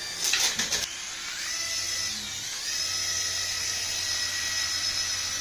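A few clicks, then a small electric motor of a remote-control toy whines up in pitch in two steps and runs at a steady high whine.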